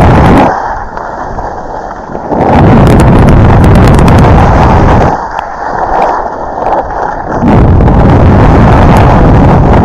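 Wind rushing over a body-worn camera's microphone during a fast downhill run on snow, loud and booming, easing twice for a couple of seconds each time. In the lulls, a quieter steady hiss of sliding over snow comes through.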